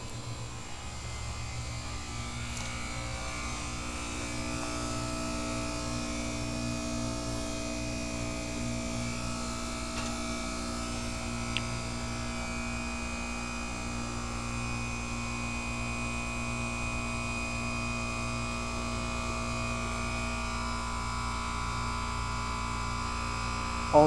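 Goodman 3.5-ton heat pump outdoor unit humming steadily with a buzzy, multi-tone drone while it runs a defrost cycle to melt the ice off its coil. A faint click comes about halfway through.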